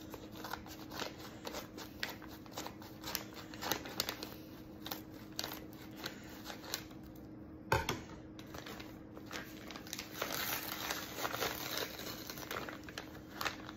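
Scissors snipping through a paper bubble mailer, with many small clicks and paper crinkling and rustling. There is one louder snap about eight seconds in, and heavier rustling near the end as the mailer is pulled open.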